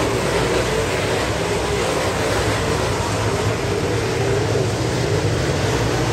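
A field of dirt modified race cars at speed around a dirt oval, their engines blending into one loud, continuous, wavering drone.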